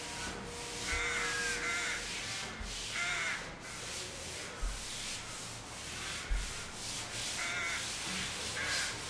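Rooks cawing: short harsh caws about a second in, around three seconds, and twice near the end, over a steady background hiss. A couple of low thumps fall in the middle.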